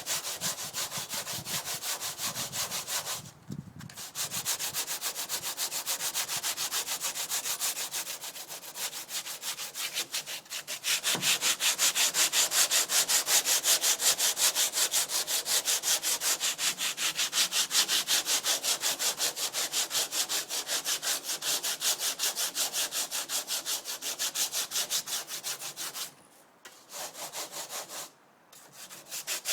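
Fiberglass dodger being sanded: fast, even rasping strokes that stop briefly a few times and get louder partway through. The layup is at the sanding stage before the last glass layer and the gel coat.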